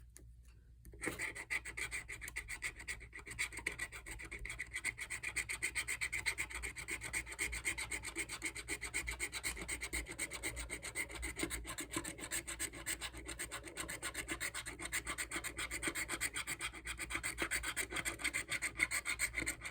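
A North Carolina Lucky Dog scratch-off lottery ticket being scratched, its coating scraped away in rapid, continuous strokes that start about a second in.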